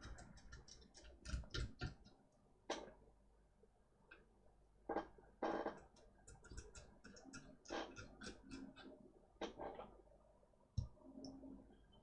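Irregular light clicks and taps of small tools and parts being handled on a laptop mainboard, with a few sharper knocks spaced a second or two apart.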